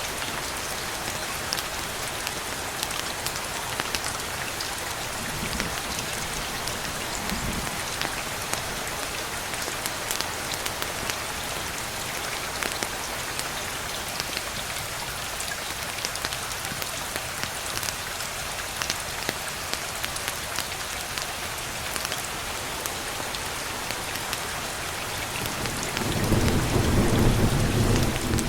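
Steady rain falling, with a low rumble of thunder swelling for about two seconds near the end, the loudest part.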